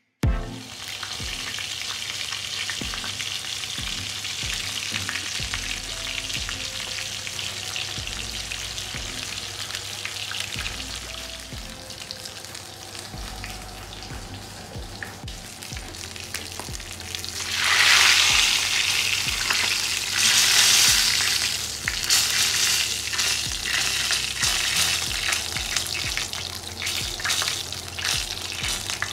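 Queenfish halves shallow-frying in hot oil in a pan: a steady crackling sizzle full of small pops, which surges louder for a few seconds a little past the middle.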